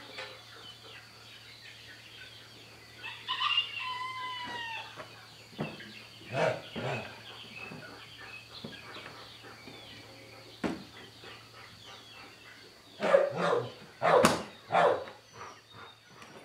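Farmyard animal calls: one drawn-out, arching call a few seconds in, then a cluster of short, loud calls near the end, over a faint steady hum.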